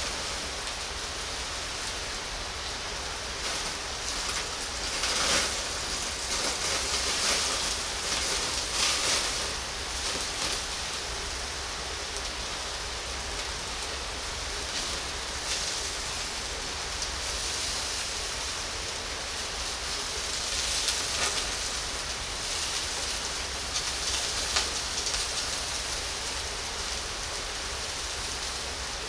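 Pork belly sizzling on a grill over charcoal: a steady hiss with scattered crackles and pops of fat, busier in a few spells.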